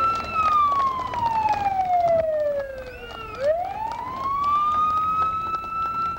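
Fire truck siren wailing: its pitch holds high, falls slowly for about three seconds, then winds quickly back up and holds high again.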